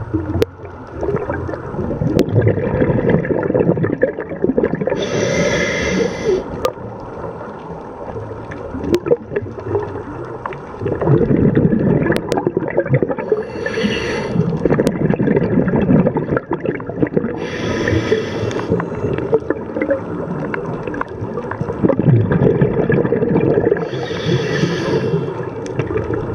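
Scuba diver breathing through a regulator, heard underwater: four short hisses of air from the regulator, each set in longer spells of rumbling, gurgling exhaust bubbles.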